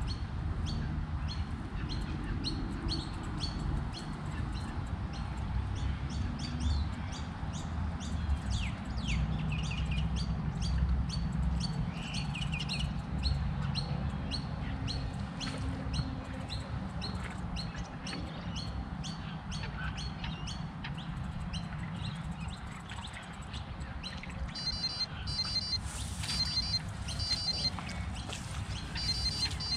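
Birds chirping over a steady low rumble. About 24 s in, an electronic carp bite alarm starts beeping in rapid repeated bursts, signalling a fish taking the bait.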